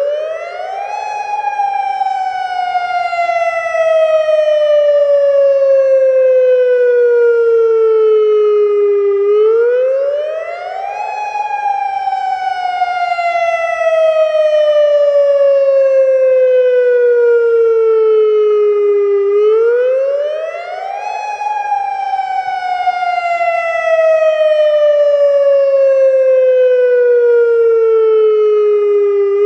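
Federal Signal Modulator 3012 electronic outdoor warning siren sounding its full wail tone as a test. The tone swings up quickly for about a second, then slides slowly down for about nine, repeating about every ten seconds, three times over.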